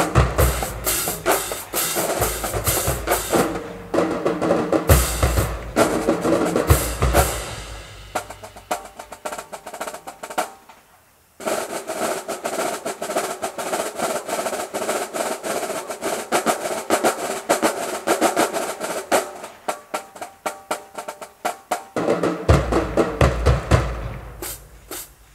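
College marching drumline with snare and bass drums playing a fast cadence. It trails off to a short near-silence about eleven seconds in. The snares come back in hard without the bass drums, and the bass drums rejoin a few seconds before the end.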